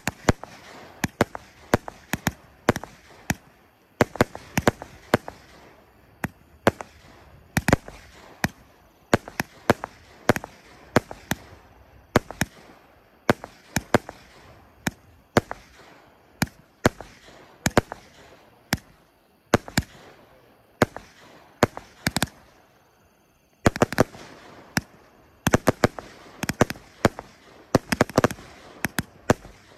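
Lynch Imports 'Trifecta' 1.3G consumer fireworks cake firing: a long run of shots launching and bursting overhead, a sharp pop every half second to a second. About three-quarters of the way through there is a brief pause, followed by a denser flurry of bursts.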